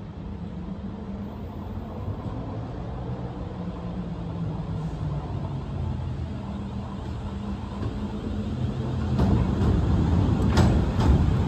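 Class 450 Desiro third-rail electric multiple unit approaching at low speed: a steady low hum that grows louder as it nears. From about nine seconds in the running gets rougher and louder, with several sharp clicks of wheels over the rail joints near the end.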